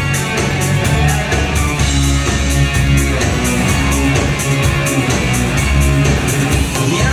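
Live rock band playing an instrumental passage with guitar, bass and a steady drum beat.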